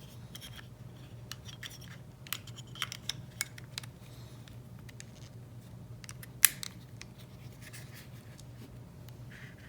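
Nokia 8600 Luna being handled: light clicks and scratches of its sliding body and battery cover, a quick run of about five clicks two to four seconds in, then one sharp, louder click about six and a half seconds in.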